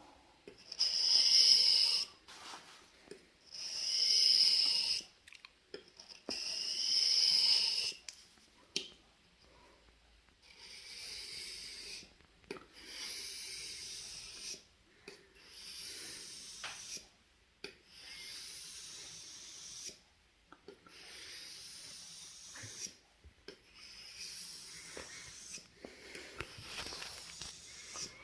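Steel knife blade stroked back and forth across a wet sharpening stone, each stroke a short rasping scrape. Three louder strokes come in the first eight seconds, then a run of softer, longer strokes.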